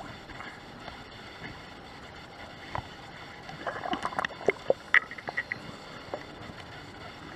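Underwater sound heard through a camera housing during a scuba dive: a steady low hiss, then a cluster of bubbling pops and sharp clicks about four to five seconds in, typical of a scuba diver's exhaled bubbles from the regulator.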